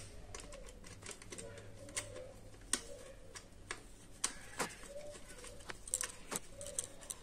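Irregular sharp clicks and taps of a screwdriver working the screws of a plastic terminal block on a flour mill's control circuit board, over a steady low hum.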